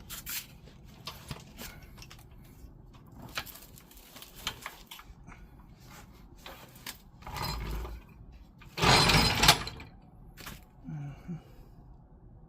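Wooden blocks under a lowered fuel tank being worked loose: scattered knocks and clicks, a scrape just after seven seconds, and a louder scraping clatter about nine seconds in.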